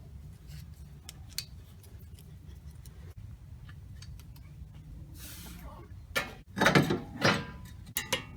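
Hand work on a car's wheel hub: scattered small clicks and clinks of parts and tools being handled, such as a wheel speed sensor connector being plugged in, with a louder clatter of knocks about six to seven seconds in. A steady low hum sits underneath.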